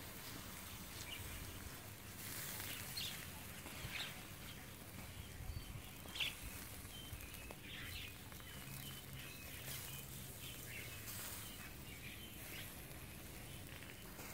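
Faint outdoor background hiss with scattered short, high chirps and ticks.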